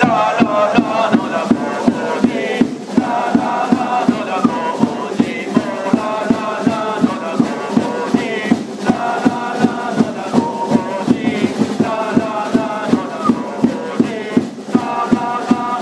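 Crowd of football supporters singing a player chant together, in unison, over a steady beat of about three a second.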